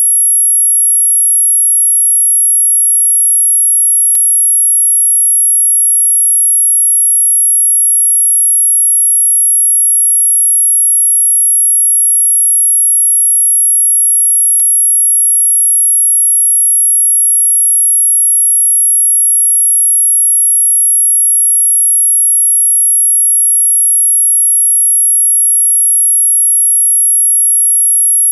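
A single very high-pitched electronic tone, steady and unwavering in pitch and level. It is played as a deterrent sound meant to stop dogs barking.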